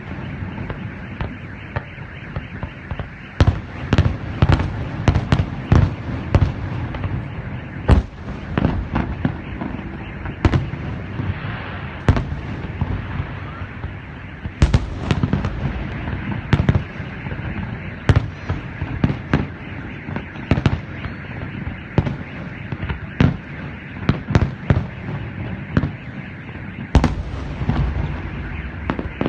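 Fireworks salute: shells bursting in an irregular, rapid series of sharp bangs, sometimes several a second, over a steady rumbling background.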